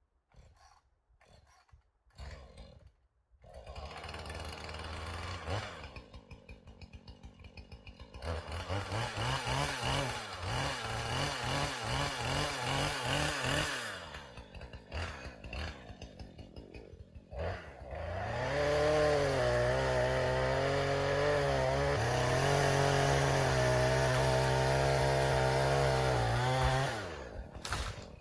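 Gas chainsaw starting up: a few sputters, then uneven blips of the throttle, then about nine seconds held at high revs with a steady pitch before dropping back near the end.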